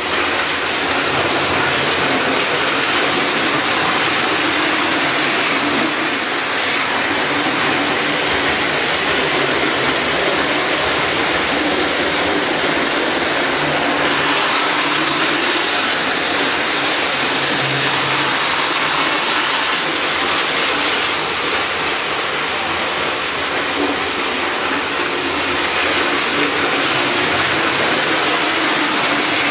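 A loud, steady rushing noise with a faint low hum underneath, even throughout with no rhythm or change.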